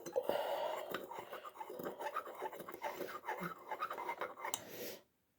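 Close-up eating of instant vermicelli noodles: mouth sounds of chewing with small clicks of cutlery against a dish, stopping abruptly near the end.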